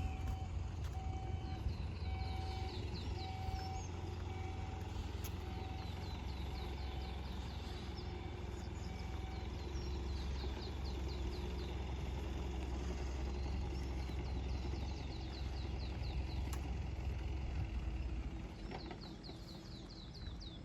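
Low steady rumble of vehicle traffic, with a small songbird repeating a rapid trill every few seconds. An electronic beep sounds about once a second and stops about halfway through.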